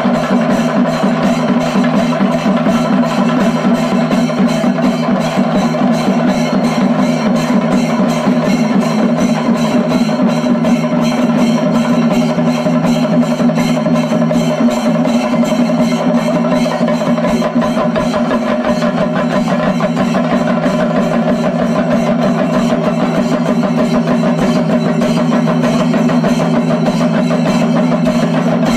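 Chenda melam: an ensemble of Kerala chenda drums beaten with sticks in a fast, continuous, even beat, loud and unbroken throughout.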